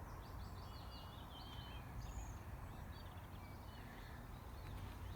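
Songbirds twittering, with quick runs of short high chirps and trills, over a faint low rumble.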